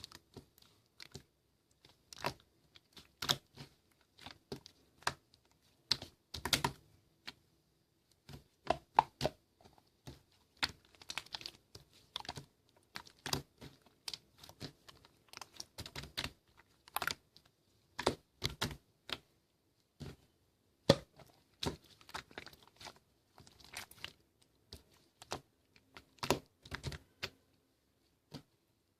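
Slime being squeezed and pressed by hand, giving irregular sticky clicks and pops, some in quick clusters.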